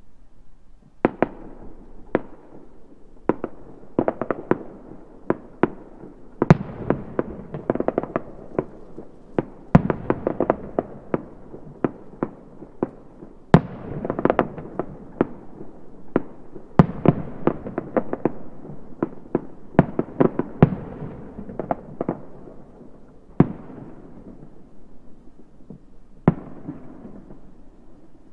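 Fireworks bursting: dozens of sharp bangs and pops at irregular intervals, each trailing an echoing rumble. They start about a second in and thin out to a few last bangs near the end.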